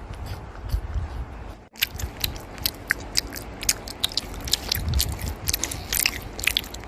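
A person biting and chewing food, with many short, irregular crunching clicks; the sound breaks off for an instant about two seconds in.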